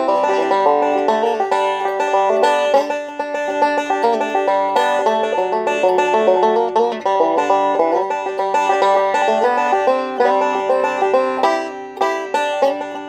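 Five-string resonator banjo fitted with a Schappert tone ring, picked with metal finger picks in a fast, continuous run of notes.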